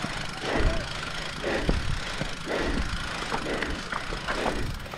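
Mountain bike rattling and knocking over rough trail, a run of irregular clatters and thuds over steady rushing noise.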